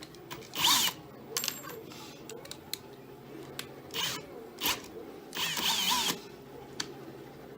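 A power drill spun in several short whirs as it is set up with its bit, the pitch wavering with the trigger; the longest whir comes about five and a half seconds in. Sharp handling clicks fall between the whirs.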